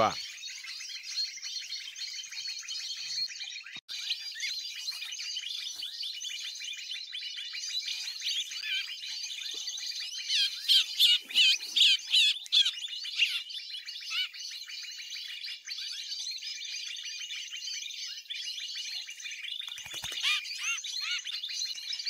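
Dense, unbroken chirping and calling of many small songbirds. A louder run of sharp, rapid calls comes about ten to thirteen seconds in.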